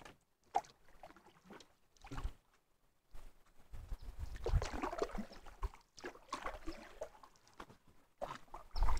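Canoe paddle strokes in calm water: irregular bursts of swishing and dripping, sparse in the first few seconds and more continuous after about three seconds.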